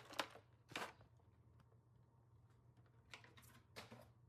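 Near silence broken by five short rustling, scraping noises of something being handled: two near the start, one just before a second in, and two more after three seconds.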